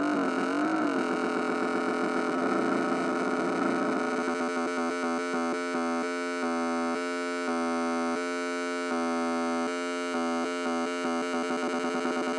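Homemade Weird Sound Generator circuit played through a small mini amp: a harsh, buzzy electronic tone that wobbles up and down in pitch for the first second, then holds steady. About four seconds in it breaks into a fast, stuttering pulse that switches between patterns every second or so.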